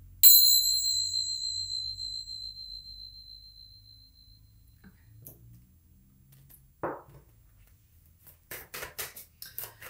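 Tingsha cymbals struck together once to clear the energy, a bright high ring that fades away over about four seconds. Later comes a single knock, then the quick riffling of tarot cards being shuffled near the end.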